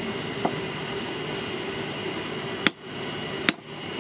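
Two sharp hammer strikes on a small hand-held steel punch, cutting crescent marks into a wooden board, about a second apart near the end. A fainter knock comes about half a second in, over a steady background hiss.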